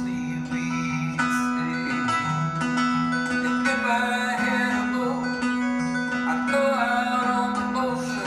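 Live acoustic music: two acoustic guitars playing together, with low bass notes changing every half second or so under the chords, and a sung vocal line.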